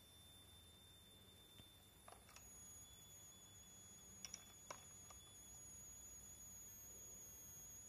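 Coil whine from a YH11087A 5A MPPT solar charge regulator: a thin, very high-pitched steady whine. About two and a half seconds in it jumps up in pitch and grows stronger. A few faint clicks come through under it.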